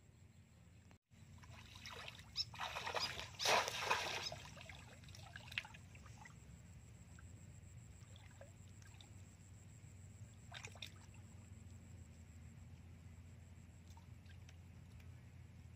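Shallow muddy water splashing and sloshing around a bamboo plunge-basket fish trap as a hand reaches into it to feel for fish. A cluster of splashes starts about a second and a half in and is loudest a couple of seconds later; a shorter splash follows near the two-thirds mark.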